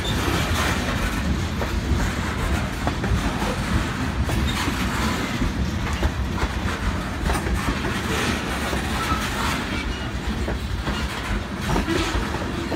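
Freight train cars rolling past, steel wheels clicking over rail joints over a steady rumble.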